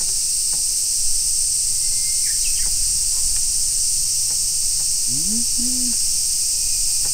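Steady, shrill drone of cicadas, with a short rising hum from a man's voice about five seconds in.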